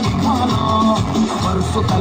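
Upbeat dance music with a steady beat, a bass line and a melody that slides between notes.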